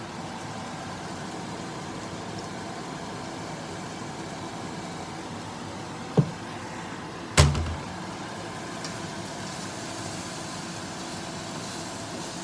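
Stir-fry cooking in a stainless steel frying pan: a steady hum under two sharp knocks of cookware against the pan, about six and seven seconds in, the second the louder and heavier.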